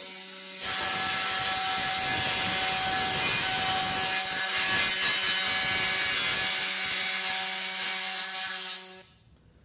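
Handheld pneumatic cutting tool running at full speed as it cuts the fuel-pump hole through the sheet steel of a fuel tank: a steady buzz with a hiss. It comes up to speed about half a second in and cuts off abruptly near the end.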